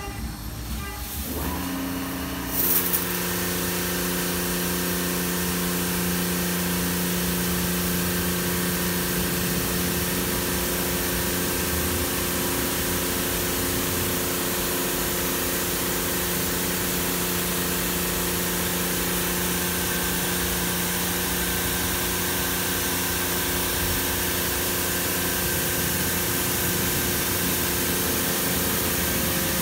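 Karcher CBC rollover car wash on its high-pressure wash pass. A steady motor hum starts about a second and a half in, and the high-pressure water jets start hissing about a second later; both then keep going steadily.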